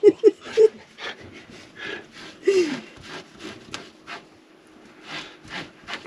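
Hands scrubbing a dusty mesh RV air-conditioner filter with a paper towel, in short scratchy rubbing strokes. A brief laugh comes at the start.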